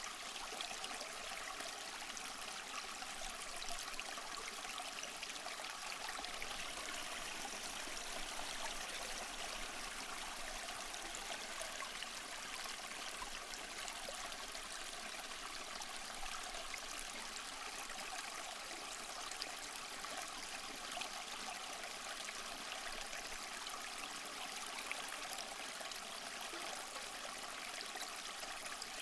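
Small mossy waterfall splashing and trickling steadily: an even hiss of falling water with no breaks.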